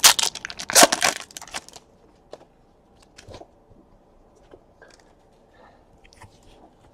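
Trading card pack wrapper crinkling and tearing loudly for about the first two seconds, then a few faint clicks and rustles of cards being handled.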